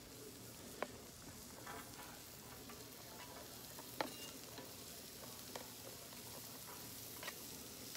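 Chicken and vegetables sizzling on a flat-top griddle, a steady frying hiss. Sharp clicks and taps come from a knife scraping sliced vegetables off a plastic plate onto the hot surface; the loudest is about four seconds in.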